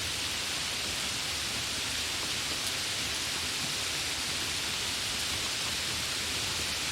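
Light rain falling: a steady, even hiss of many small drops, with no gusts or thunder.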